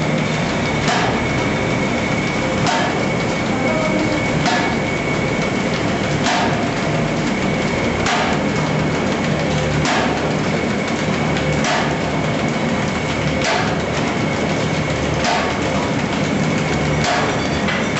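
Paper bag making machine running, a steady mechanical clatter with a sharp knock repeating about every 1.8 seconds as the machine cycles.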